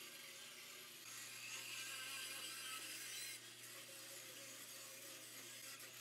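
Bandsaw running with a steady hum while its blade cuts into a block of Brazilian cherry hardwood; the cutting hiss grows stronger and then drops off suddenly about three and a half seconds in.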